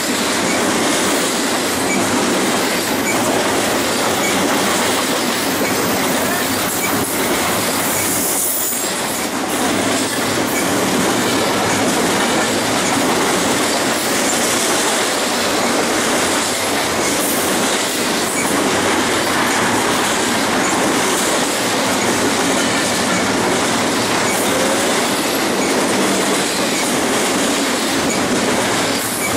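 Double-stack intermodal freight cars of a BNSF train passing close by, with the steady, loud noise of steel wheels running on the rails.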